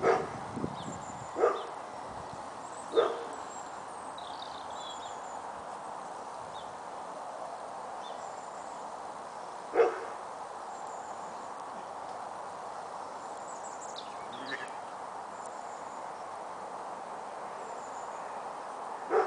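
Lambs bleating in short, loud calls: three close together at the start, one about ten seconds in, and another at the very end, over a steady background hiss.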